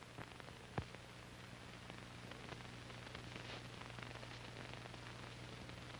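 Faint hiss and crackle of an old film soundtrack over a low steady hum, with one sharp click just under a second in.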